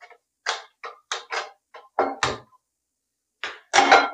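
Steel saucepan and spoon clinking and knocking on a gas stove: a string of short metallic clanks with a brief ring, the loudest near the end.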